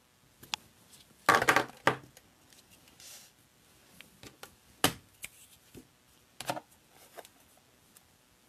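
Hand rubber stamping: a stamp on a stamp block knocking and tapping against the ink pad and card, with paper handled in between. The loudest is a cluster of knocks about a second and a half in, then single knocks about five and six and a half seconds in.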